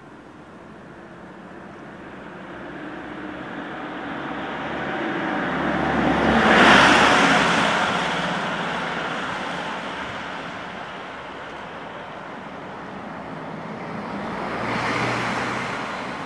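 Road vehicles passing close by: a steady rush of tyre and engine noise swells to a loud peak about seven seconds in and fades away, then a second, quieter pass swells and fades near the end.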